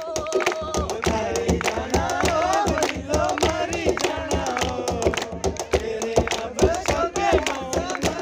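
A man singing a Dogri folk song unaccompanied, his voice wavering and ornamented, over steady rhythmic hand clapping that keeps time.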